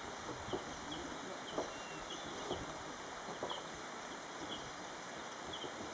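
Outdoor ambience: a steady hiss with a short, high chirp repeating about twice a second. Soft low taps come about once a second through the first few seconds.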